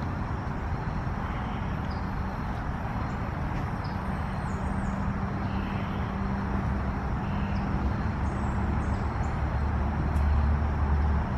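Road traffic noise: a steady hum of a motor vehicle, swelling louder near the end as it passes close.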